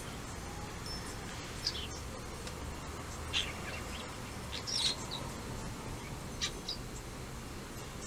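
Starling singing: a handful of short, high, squeaky chirps and whistles spaced out over several seconds, over a steady low background noise.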